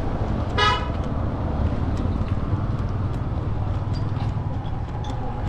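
A single short vehicle horn toot, flat in pitch, about half a second in, over a steady low street rumble with scattered faint clicks.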